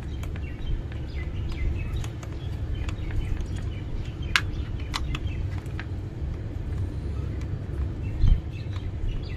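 Small screwdriver working screws out of a corded drill's plastic housing, with a few sharp clicks and a dull bump about eight seconds in, over a steady low background rumble and faint bird chirps.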